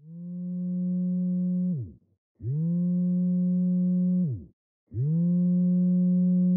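A mobile phone vibrating against a hard surface: three buzzes of about two seconds each with short gaps, each spinning up at the start and sagging in pitch as it stops, the rhythm of an incoming call.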